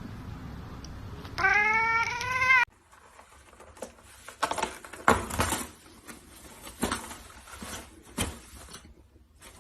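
A cat giving one loud, drawn-out meow of about a second, wavering in pitch, which cuts off suddenly. It is followed by scattered clicks and knocks.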